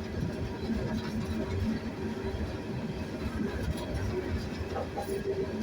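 Slow-moving loaded coal train heard from aboard one of its cars: a steady rumble of wheels on the rails and the cars working, with a faint wavering squeal.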